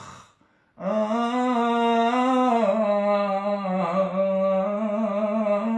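Unaccompanied male voice singing 'ataba: after a short breath near the start, one long held, drawn-out vowel that slowly steps down in pitch.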